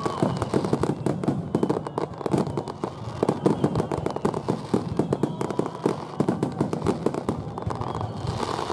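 A dense barrage of aerial firework shells bursting in quick succession, many booms and cracks a second, as in a grand-finale star mine. A faint whistle comes through now and then.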